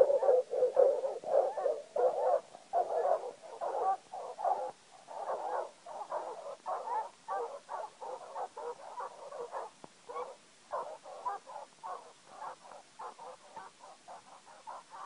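Bear hounds barking fast at a black bear they have bayed, about three barks a second, growing fainter after the first few seconds.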